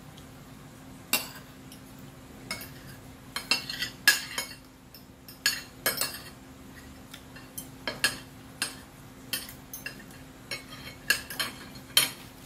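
Metal forks clinking and scraping against a dinner plate while eating, in irregular sharp clicks, a couple of dozen of them.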